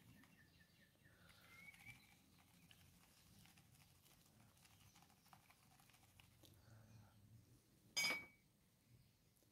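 Faint swish of water in a plastic gold pan being swirled in a washtub, with one sharp knock about eight seconds in.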